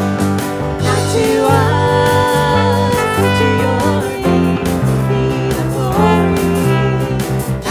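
Contemporary Christian worship song played by a band: drums and bass with guitar, in a stretch between sung lines.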